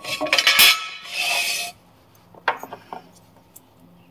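Metal bolt-and-washer hardware scraping and clinking against the frame as it is worked by hand into a rock-slider mounting hole. There is a clatter at the start, a short rasping scrape about a second in, and a few light clicks near the middle.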